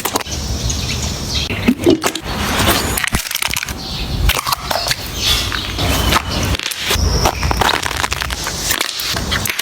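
Slime being squeezed and worked by hand: a busy run of irregular sticky crackles, pops and clicks.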